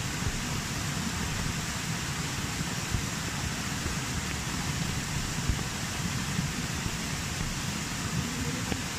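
Steady rushing of a small waterfall over rock together with falling rain, with scattered soft low thumps.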